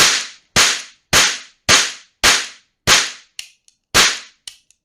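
Smith & Wesson .357 Magnum replica cap revolver firing ring caps: seven sharp cracks about half a second apart, each with a short ringing tail, with a longer pause and a faint click before the last one.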